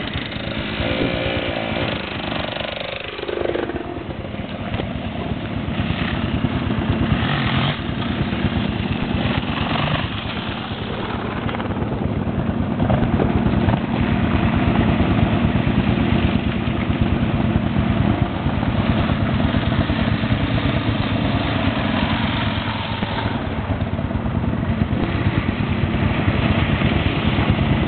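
Off-road motorcycle engine running, revving and easing off, with a brief change in pitch early and a steady, louder run about halfway through.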